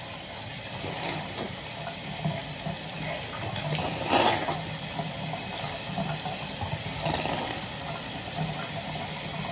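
Bathroom sink faucet running steadily, water pouring into the basin, briefly louder about four seconds in.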